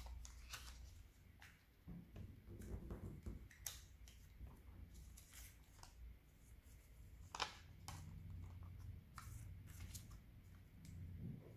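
Faint rustling and crinkling of a sheet of origami paper being handled and creased, with scattered small crackles and a sharper click about seven seconds in.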